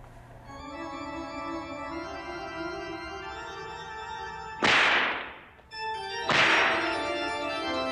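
Organ music holding slow sustained chords, cut by two loud whip lashes, the first about two-thirds of the way in and the second just over a second later, each a sudden crack that fades over about a second.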